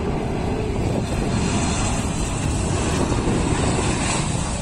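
Jet engines of a Boeing 747 freighter passing low overhead on landing approach: a deep roar that swells, with a rushing hiss building in after about a second.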